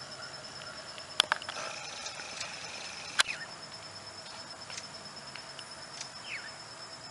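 Outdoor ambience: a steady high-pitched insect trill with a few short falling bird chirps, and sharp clicks twice about a second in and once more at about three seconds.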